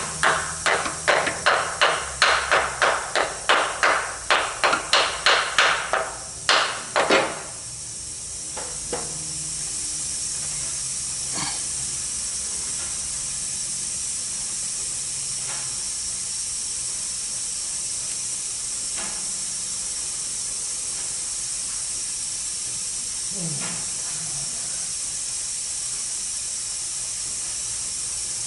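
Hammer blows driving a new axle seal into a Ford 6F35 transmission case, quick taps about three a second, then two harder blows about seven seconds in. After that a steady hiss with a few faint knocks.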